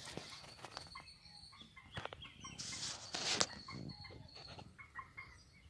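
Rural outdoor ambience: hens clucking and small birds chirping, with a brief noisy rush about three seconds in.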